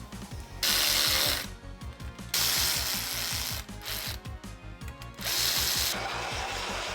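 Tool work on a mountain bike fork's steer tube and crown race, in three loud bursts of about a second each, over background music with a steady beat.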